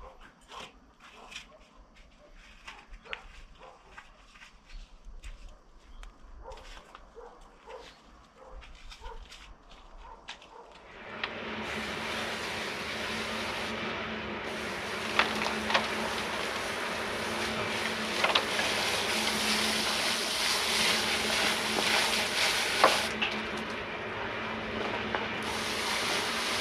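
Water spraying from a hose: a steady hiss with a low hum under it, starting about eleven seconds in and thinning briefly twice. Before it, faint scattered knocks and clicks.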